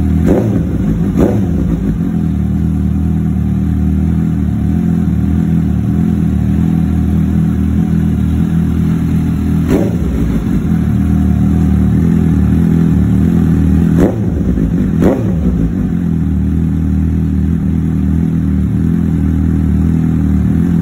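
Suzuki GSX-S750's inline-four engine idling steadily through a Yoshimura Alpha slip-on exhaust, with about five brief, sharp blips scattered through the idle.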